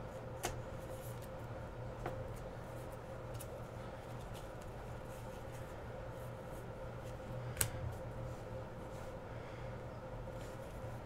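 Quiet handling of trading cards: faint rustling and a few light clicks, the clearest about seven and a half seconds in, over a steady low electrical hum.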